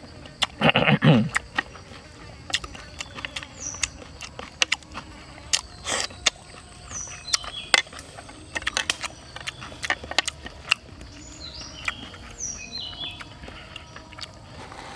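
Eating sounds: scattered sharp clicks of chopsticks and a plastic spoon against a plate, with chewing and a short hum from the eater about a second in. Short, falling high chirps and a faint insect buzz sound in the background, the chirps more often in the second half.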